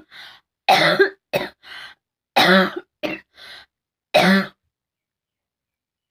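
A person coughing deliberately for a cough challenge: three loud coughs about a second and a half apart, with softer breathy coughs or gasps between them, stopping about a second and a half before the end.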